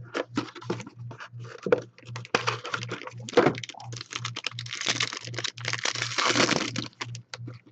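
Trading cards and a pack wrapper being handled: a run of sharp clicks and taps, then a few seconds of dense crinkling and rustling that ends shortly before the close.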